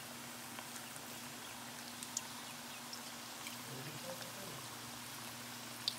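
Battered chicken pieces deep-frying in hot oil in a wok: a steady sizzle with scattered crackles and pops, over a low steady hum.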